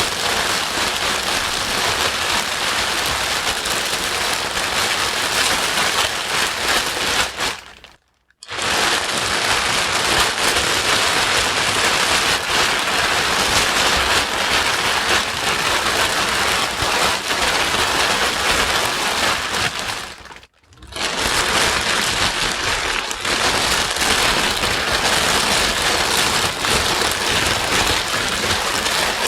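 Loud, steady white noise with a rain-like hiss flecked with fine crackle. It dips to silence twice for about half a second, once about a quarter of the way in and again about two-thirds in, fading out just before each gap.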